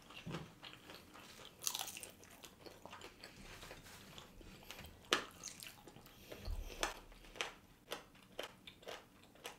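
Close-miked biting and chewing of crispy Korean fried chicken: irregular crunches, the loudest about two seconds in and about five seconds in, with smaller ones toward the end.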